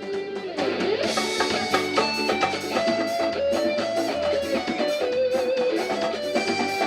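Band music with electric guitar and drum kit, getting fuller about a second in.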